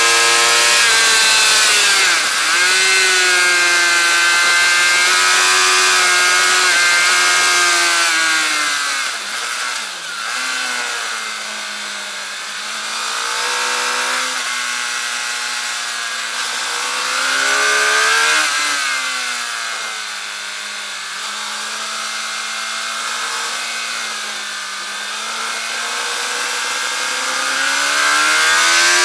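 Suzuki GSX-R 750 K8's inline-four engine running hard on track, heard from a bike-mounted camera with heavy wind rush. The revs dip briefly about two seconds in, fall away around nine to ten seconds, climb again around seventeen seconds, drop back, and rise once more near the end.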